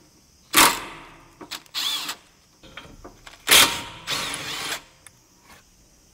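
Power tool running in short bursts as the stabilizer link rod nuts are undone: four bursts, the loudest about half a second and three and a half seconds in.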